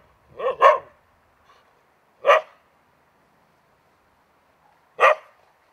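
Dog barking: a quick double bark about half a second in, a single bark about two seconds in, and another near the end.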